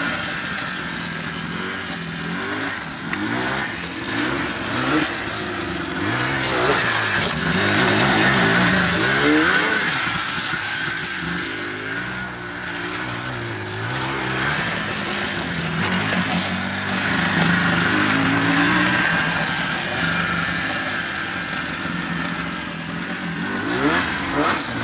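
A quad ATV's engine revving up and down over and over as it is ridden around, its pitch rising and falling with the throttle.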